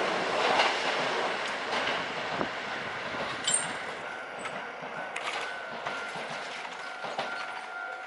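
Hankyu 5100-series electric train running away over the rails, its wheels clicking over the rail joints as the sound fades, with a brief high wheel squeal about three and a half seconds in. A level-crossing warning bell rings faintly in the second half.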